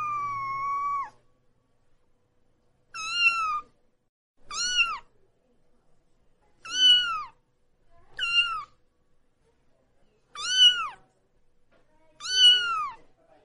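Young kitten meowing over and over while being bathed: seven high meows about every one and a half to two seconds, each rising then falling in pitch, the first one long and drawn out.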